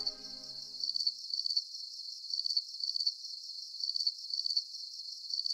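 Crickets chirping in a steady high-pitched pulsing rhythm, about two chirps a second, while the closing music fades out in the first second.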